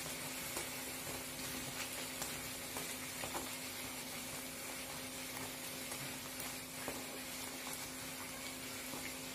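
Chola puri deep-frying in hot oil in a kadai: a steady sizzle while a slotted ladle presses it down so it puffs up, with a few faint clicks.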